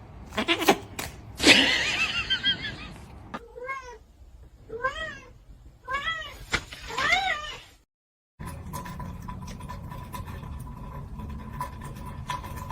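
Domestic cat meowing: a longer call near the start, then about four short meows in a row, each rising then falling in pitch. After a short break comes a steady hum with a faint steady tone.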